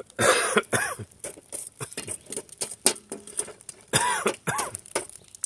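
Metal tongs clicking and charcoal briquettes clinking and scraping as hot coals are pushed around and levelled in a small kettle grill. Two louder rasping sounds come near the start and about four seconds in.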